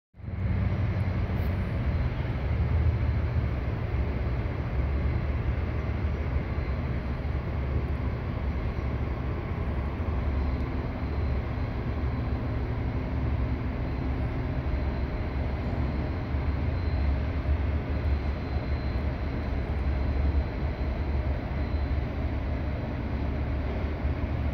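Steady low engine drone of the passing lake freighter.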